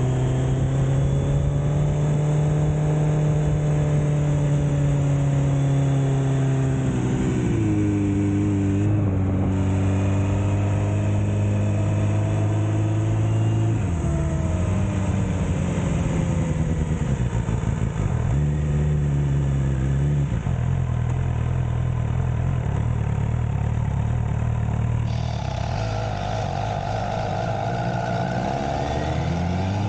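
MV Agusta Brutale motorcycle engine running while the bike is ridden on the road. The engine note holds steady, then drops and picks up again several times as the throttle and gears change, and rises near the end as the bike accelerates.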